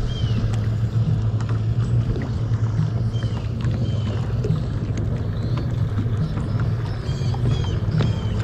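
Steady low rumble of wind and water around a bass boat on open water, with a few short high chirps: one at the start, two midway and a small cluster near the end.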